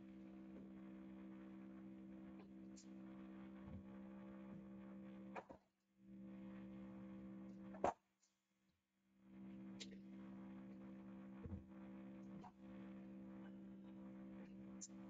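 Near silence: a steady low electrical hum that cuts out twice, with a few faint clicks and one sharper click about eight seconds in.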